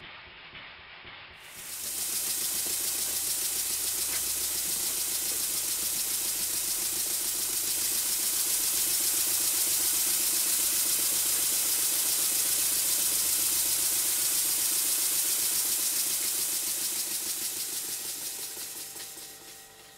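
Blackgates Twin model steam engine, a twin oscillating-cylinder engine, running with a steady hiss of exhaust and fine rapid pulsing. The hiss starts about a second and a half in and fades away near the end.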